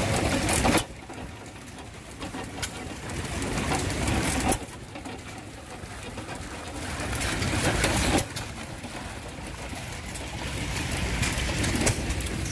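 Antique stationary gas engines running, with an engine-driven pump splashing water into a tub. A sound swells for about three seconds and cuts off sharply, three times in a row, about every three and a half seconds.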